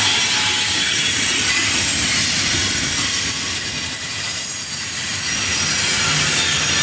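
Loaded double-stack intermodal well cars rolling slowly past on jointed track, a steady rolling rumble and rattle of wheels on rail. A thin high-pitched wheel squeal sets in a couple of seconds in and holds to the end.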